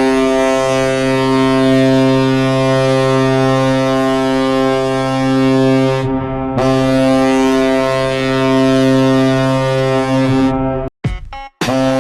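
Ice hockey goal horn blaring in long, steady blasts: one of about six seconds, a brief dip, then another of about four seconds. It cuts out near the end and starts again just before the end.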